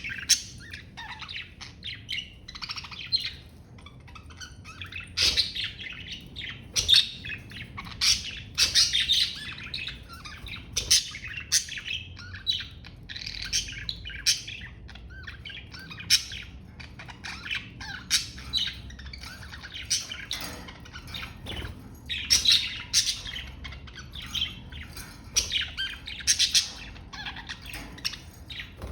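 Budgerigars chirping and warbling continuously, a dense mix of short chirps, chattering and occasional squawks.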